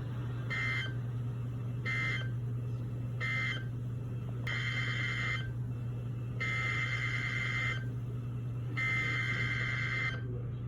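Emergency Alert System SAME data bursts, the buzzy digital screech of the alert code: three short end-of-message bursts about a second apart, then three longer header bursts, each about a second long, opening the next alert. A steady low hum runs underneath.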